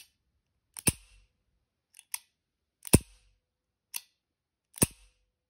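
Ruger SP101 revolver's double-action trigger pulled three times, each hammer fall a sharp metallic click about two seconds apart, with lighter clicks in between. The trigger return gives a slight squeak, which the owner puts down to a trigger needing polishing.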